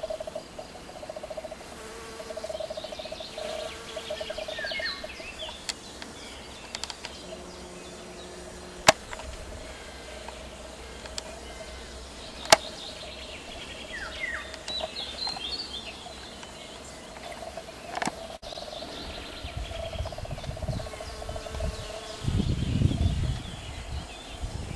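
Honeybees buzzing in a steady hum that fades in and out, with small birds chirping throughout. Two sharp clicks come near the middle, and a low rumble comes near the end.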